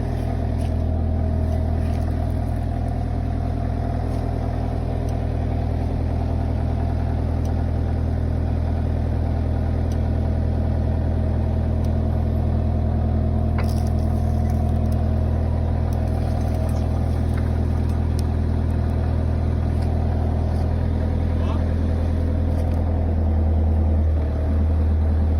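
Vehicle engine running steadily with a constant low hum while a load is lowered, with a few faint clicks and knocks.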